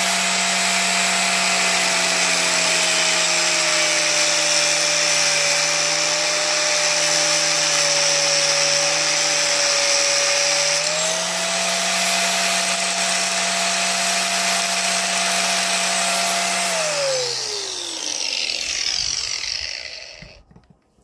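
Corded angle grinder cutting notches into a steel threaded bar, a steady high motor whine over the grinding hiss of the disc on metal. The motor note sags a little under load, rises again about eleven seconds in, then the grinder is switched off and winds down to a stop over the last few seconds.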